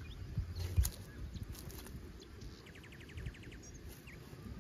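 Small birds chirping outdoors, with one fast, even trill in the middle, over a steady low rumble; a single thump about a second in.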